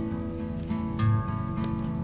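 Background music led by plucked acoustic guitar, with held notes and a strong low note about a second in.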